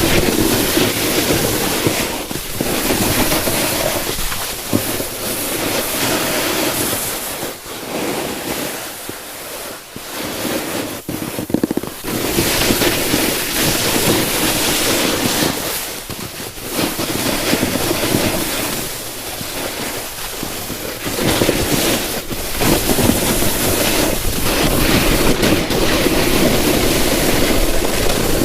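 Snowboard sliding and carving over icy, choppy snow: a rushing scrape that swells and dips with the turns, with wind rushing over the microphone.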